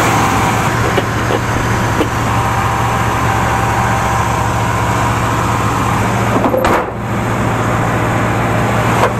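Carbureted V8 of a 1983 GMC K15 pickup running at a high, fast idle, which the owner puts down to the choke not opening. About two-thirds of the way through, a single sharp slam as the hood is shut, after which the engine sounds a little quieter.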